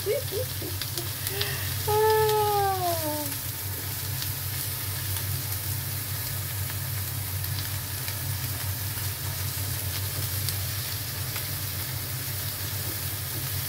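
Shell-on prawns sizzling on a hot ridged grill pan, a steady hiss, with metal tongs clicking lightly as they turn the prawns. About two seconds in, a short falling voice-like hum passes over it.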